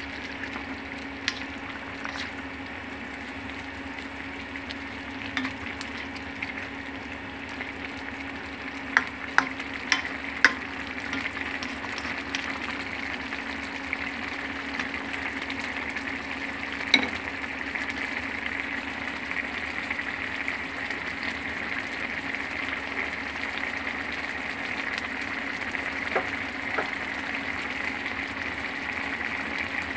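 Food frying and sizzling in a hot pan while it is stirred, a little louder in the second half. A few sharp knocks against the pan come about nine to ten seconds in, and one more a little later.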